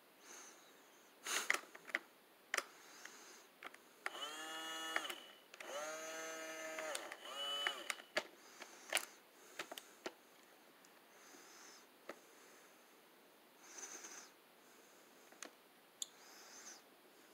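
Plastic clicks and clatter of a Tonka Roadside Service toy tow truck's levers and buttons being worked by hand, scattered through the stretch. About four and six seconds in, two short electronic tones, each a second or so long, play from the toy's speaker.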